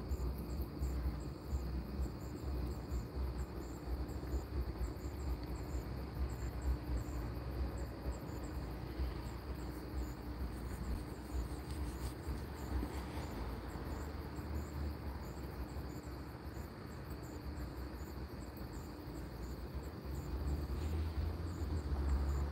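Night insects chirping: high chirps repeating evenly without a break, over a faint low rumble and hum.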